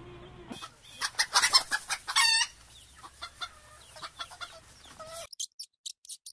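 Animal calls: a quick run of short, sharp calls about a second in, then a longer pitched squawk a little after two seconds, followed by scattered quieter calls. The sound cuts off suddenly about five seconds in, leaving only a few faint clicks.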